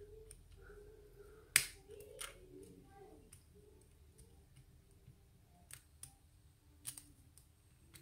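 Lock pick and tension wrench working in the keyway of a small 5-pin Master Lock padlock: faint, scattered metallic clicks, the sharpest about a second and a half in.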